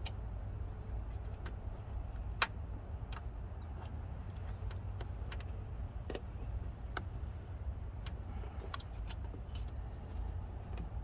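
Scattered small metallic clicks and ticks of an Allen wrench working the screws of a strut clamp, with one sharper click about two and a half seconds in, over a steady low background rumble.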